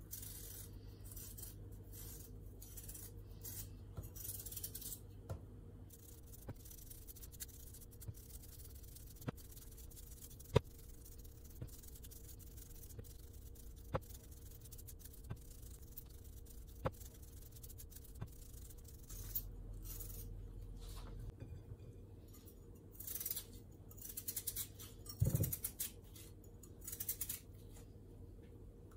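A small kitchen knife peeling raw potatoes by hand: faint, short scraping strokes as the blade shaves off the skin, with a few sharp clicks and a louder knock about 25 seconds in as potatoes and knife touch the plate. A steady low hum runs underneath.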